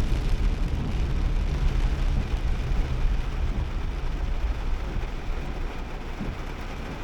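Cabin noise of a Nissan Kicks kei SUV on the move: a steady low engine and road rumble under a hiss, easing off gradually toward the end.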